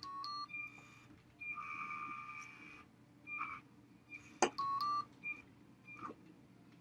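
LEGO Mindstorms robot-arm motors whining in short spurts as the arm is driven from the joystick, with a few sharp plastic clicks in between.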